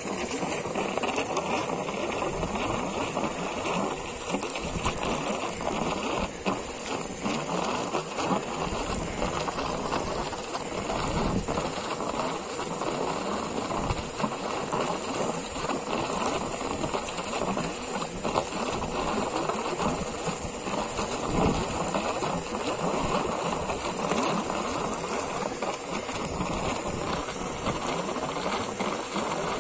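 Old air compressor running steadily while compressed air and well water sputter out of a black poly airlift hose in spurts, with a constant hiss. Only a little water is coming up, which the operator puts down to the hose having jammed short of the well bottom.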